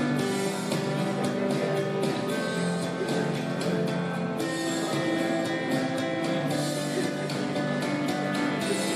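Background music with guitar, at a steady level.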